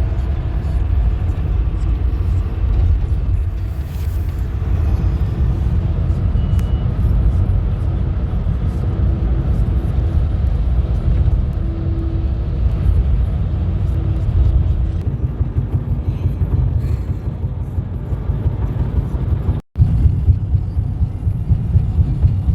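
Car road noise heard from inside the cabin: a steady low rumble of the tyres and engine while driving. It cuts out for an instant near the end and then carries on.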